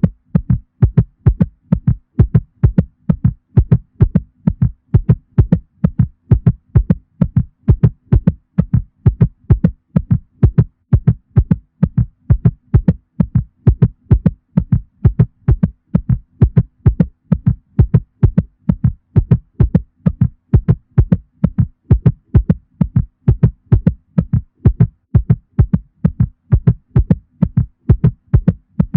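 A cat's heartbeat, fast and even, about three low thuds a second, with a faint steady hum beneath it.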